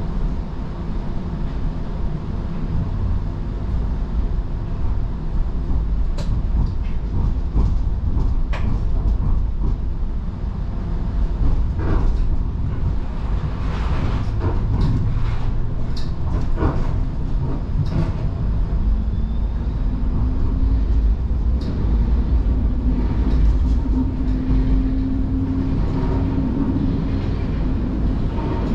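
Toronto streetcar running on its rails, heard on board: a steady rumble with scattered sharp clicks and clacks from the wheels over the track. A low steady hum comes in about two-thirds of the way through.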